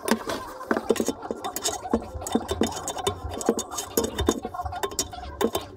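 Toilet tank parts being handled and fitted, a fill valve and its fittings: an irregular run of small hard clicks, taps and clinks.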